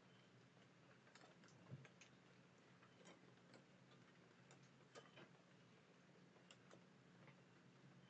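Near silence: a low steady hum with faint, irregular sharp clicks scattered through it.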